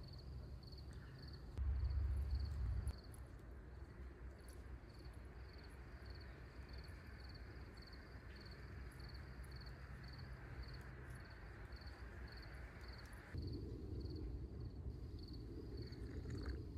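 Cricket chirping steadily in a garden, a faint high chirp repeating at an even pace. About two seconds in, a brief low rumble rises over it for about a second.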